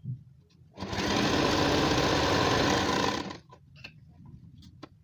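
Electric sewing machine running a seam in one continuous burst of about two and a half seconds, needle strokes rapid and even, starting about a second in. Light clicks and taps of handling follow.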